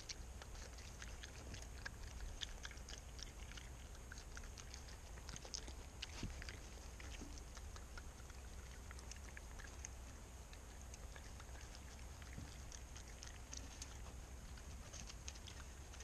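Raccoon eating birdseed at close range: irregular small crunches and clicks as it chews and picks through the seed.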